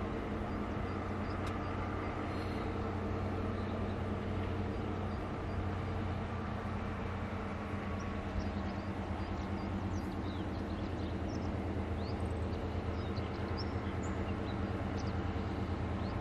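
Lyd2 narrow-gauge diesel locomotive's engine running steadily as the train approaches, a low, even hum. Small bird chirps are heard over the second half.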